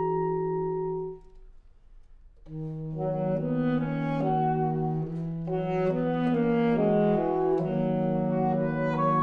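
Saxophone quartet of soprano, alto, tenor and baritone saxophones holding a sustained chord that breaks off about a second in. After a short pause the four come back in about two and a half seconds in, with moving lines over a held low note.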